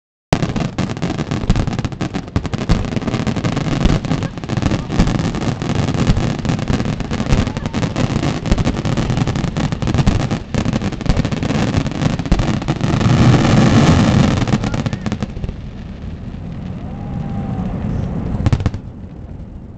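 Aerial fireworks exploding in a dense barrage of rapid bangs and cracks, growing loudest about two-thirds of the way in, then thinning out, with one last sharp bang near the end.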